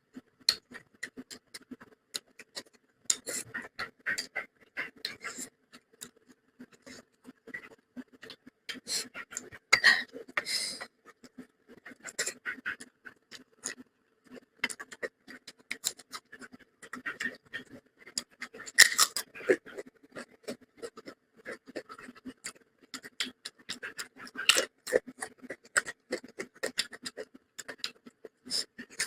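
Close-miked eating sounds: a person chewing and smacking their lips, with rapid irregular wet clicks throughout.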